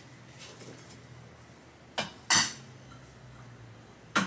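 Steel hair shear blades snapping shut as they cut through tissue to test the freshly sharpened edge: two sharp snips close together about two seconds in, and another near the end.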